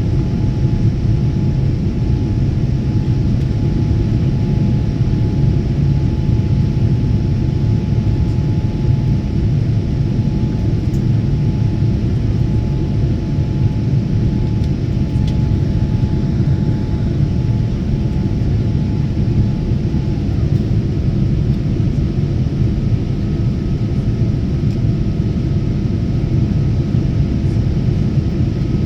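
Airliner cabin noise in flight: a steady, loud rumble of the jet engines and airflow with a faint whine in it. About twenty seconds in the whine changes pitch, with a lower tone dropping out and a higher one coming in.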